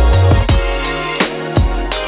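Background music: a drum beat with regular hits over a deep, sustained bass line.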